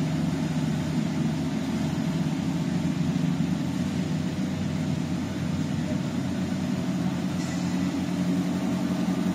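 Steady low mechanical drone of a stainless-steel continuous frying machine running, with the hum of its electric motors and pumps holding an even level throughout.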